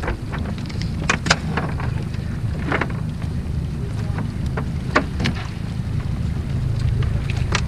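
A cast net being hauled up by hand over a boat's bow, its rope pulled in hand over hand with scattered clicks and knocks, over a steady low rumble of wind on the microphone.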